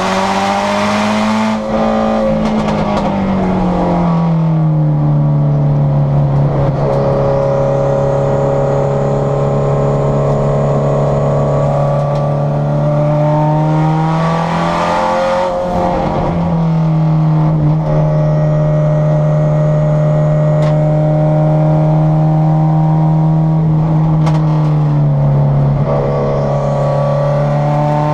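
Subaru STi race car's turbocharged flat-four engine heard from inside the cabin, running hard on track. Its pitch falls in the first few seconds, holds steady for long stretches, breaks briefly about halfway through, comes back a little higher, and drops again near the end.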